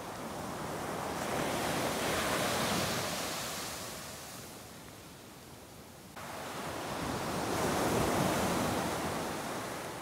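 Ocean surf breaking and washing up a sandy beach, in two surges that swell and fade, the first peaking two to three seconds in and the second coming in suddenly about six seconds in and peaking near eight seconds.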